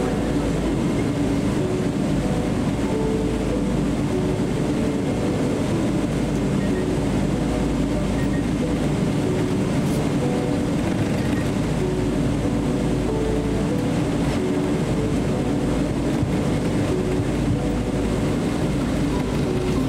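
Steady low rumble inside the cabin of a Boeing 777-300 airliner taxiing with its engines at idle.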